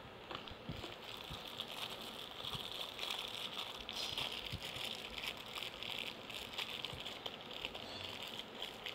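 A padlock's box and packaging being opened and handled: light crinkling and rustling with scattered small clicks and knocks.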